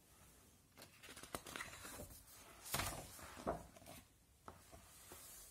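A page of a large picture book being turned by hand: faint paper rustling and swishing with a few soft strokes, loudest about three seconds in, then a hand brushing the paper.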